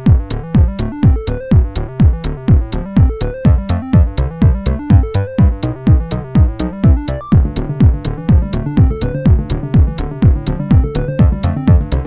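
Electronic background music with a steady drum-machine beat, about two beats a second, under short synthesizer notes.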